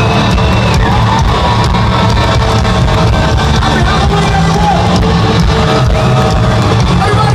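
Live alternative-metal band playing loudly, with electric guitars and drums, in a concert arena.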